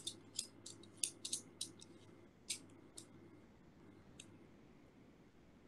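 Faint, sharp clicks and scrapes from a digital vernier caliper as its metal jaw is slid and closed on a small wood cube: about a dozen quick clicks in the first three seconds, then one more about four seconds in.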